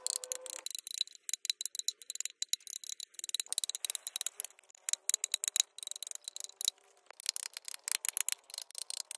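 Wood being worked by hand with a carving tool: a fast, uneven run of small clicks and scrapes as the tool cuts into the wood.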